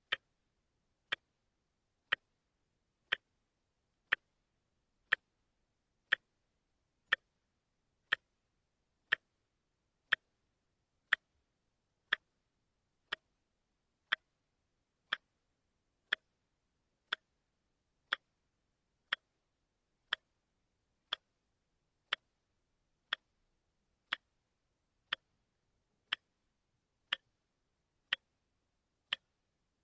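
Mechanical clock ticking steadily, one sharp tick about every second, picked up through a contact microphone and denoised so nothing is heard between the ticks.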